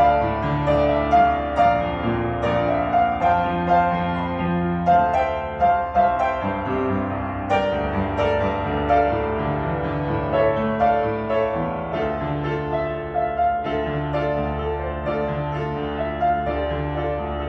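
Acoustic upright piano played solo: a moving melody over a steady accompaniment in the lower notes.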